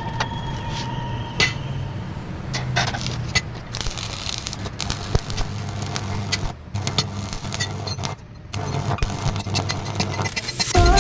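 Scattered metallic clinks, scrapes and clicks, as of iron parts being handled, over a steady low rumble.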